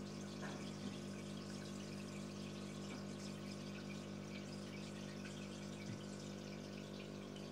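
Aquarium pump running: a steady low hum with water moving and trickling, and a couple of faint ticks.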